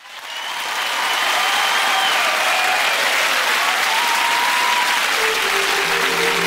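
Audience applauding and cheering, with a few high steady whistle-like tones over the clapping; music comes in with held notes near the end.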